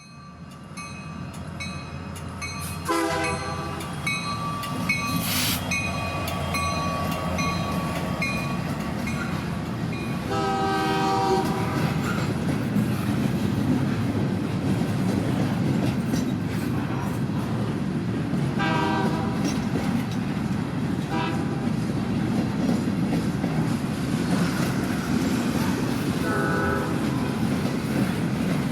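Narrow-gauge steam train rolling, its wheels and running gear giving a steady rumble, while the steam locomotive's whistle sounds five blasts. The second blast, about ten seconds in, is the longest.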